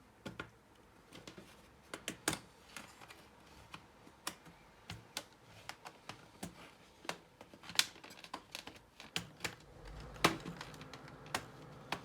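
Irregular sharp plastic clicks and snaps as a pry tool is worked around the seam of an HP 15-ac009UR laptop's plastic case, popping the snap-fit clips loose.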